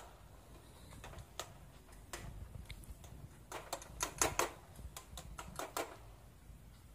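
Flat metal spatula clicking and scraping against a kadai as shredded cabbage, carrot and peas are stir-fried: faint, irregular light clicks, coming thickest in the middle.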